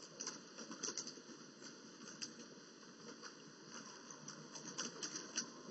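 Faint steady hiss with scattered, irregular small ticks and crackles.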